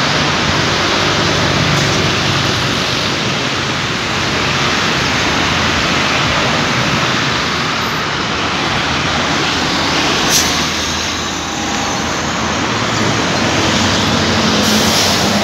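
Steady road traffic on a wide multi-lane boulevard: a constant hiss of tyres with engine noise from passing cars, the low rumble swelling slightly near the end as a dump truck goes by. A brief click about ten seconds in.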